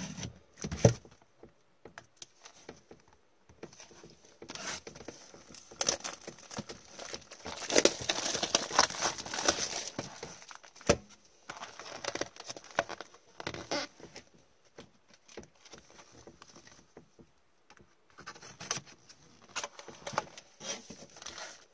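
Plastic shrink wrap being slit with a utility knife and peeled off a cardboard hockey card box, crinkling and tearing in irregular spells, with a sharp knock about a second in and more knocks as the box is turned and its lid opened.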